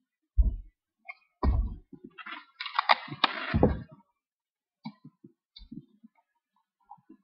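A paper envelope being handled close to the microphone: dull knocks about half a second in and again a second later, a burst of paper rustling around the middle, then a few light taps and clicks.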